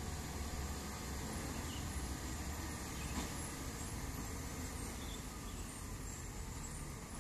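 Diesel engine of a sugarcane-laden truck with a trailer, running under load as it slowly approaches: a steady low rumble.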